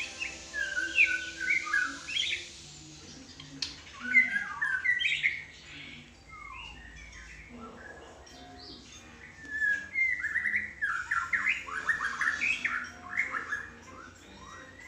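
White-rumped shama singing in three bursts of varied whistled phrases: one about a second in, one around four seconds in, and a longer run from about nine and a half seconds with quick repeated notes.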